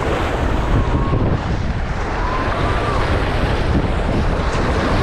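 Wind buffeting the microphone with a heavy low rumble over the steady rush of Ganges river water.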